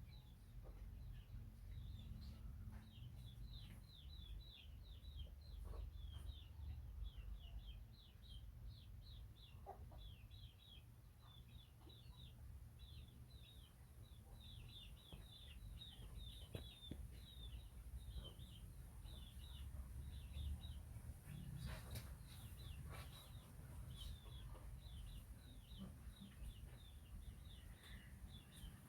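Faint chickens: a steady run of short, high, falling peeps, over a low rumble.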